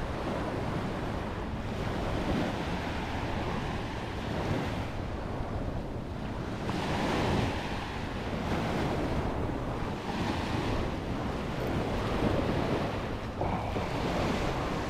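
Ocean surf breaking and washing up a sandy beach, swelling and fading every few seconds, with wind buffeting the microphone.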